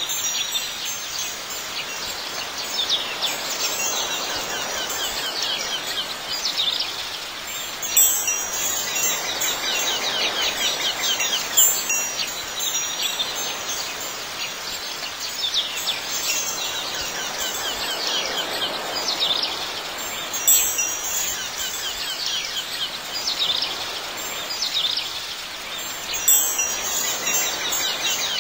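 Wind chimes tinkling continuously, with brighter, louder strikes every few seconds.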